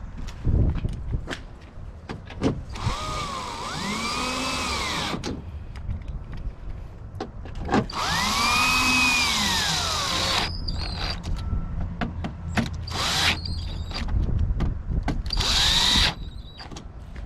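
Power drill driving the screws that hold the door lock actuator and latch assembly in the door: four runs, the motor speeding up then slowing in each, with small clicks and knocks between.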